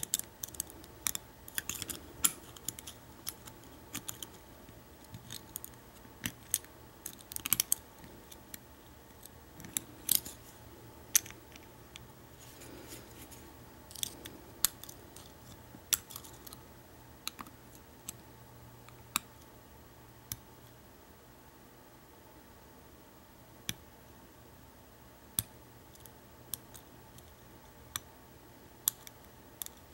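Lock pick and tension wrench working in the keyway of an American Lock 1100 padlock: small, irregular metallic clicks and scrapes as the pins are lifted, frequent in the first half and sparser in the second.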